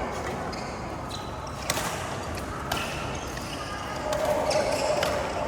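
Badminton racket striking a shuttlecock twice, two sharp hits about a second apart, over a steady background noise.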